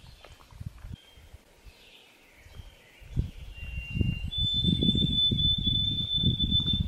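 Outdoor lakeshore ambience: wind gusting on the microphone, louder over the second half, with a high thin bird call held steady for about two seconds near the end.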